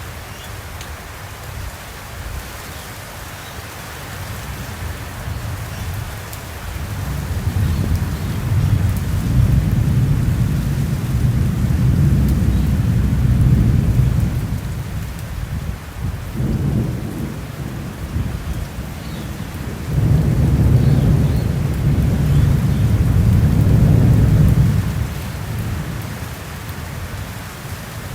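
Summer thunderstorm: steady rain falling, with two long, deep rolls of thunder, the first swelling up after several seconds and rumbling for about eight seconds, the second starting suddenly about two-thirds of the way through and fading out after about five seconds.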